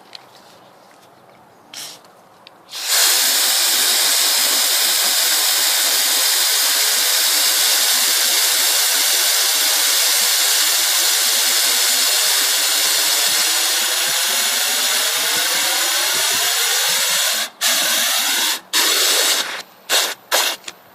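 Water running into the water ram's drive pipe: a loud, steady rushing hiss whose tone rises steadily as the pipe fills. It cuts off about three-quarters of the way through, followed by a few short bursts.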